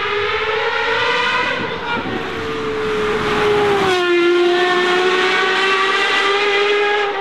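Gordon Murray T.50's naturally aspirated Cosworth V12 accelerating hard at high revs, its pitch climbing steadily. About four seconds in the pitch drops sharply, then climbs again as the car pulls away.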